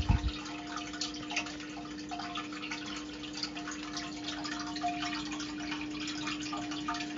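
Underwater ambience: a dense crackle of clicks and bubbling over a steady low hum, with a dull low thump at the start.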